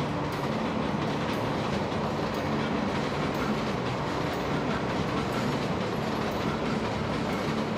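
Electric commuter train running on the rails: a steady rumble with the regular clack of wheels over rail joints.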